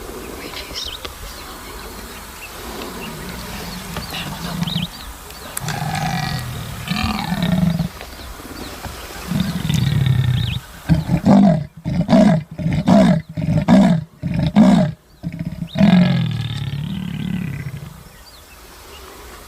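A big cat roaring: long low moans build into a run of short, loud grunts past the middle, and then one more long call.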